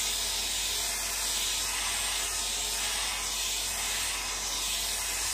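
Conair hair dryer running steadily at close range, a continuous airy rush with a faint motor whine, blowing wet alcohol ink outward across the paper.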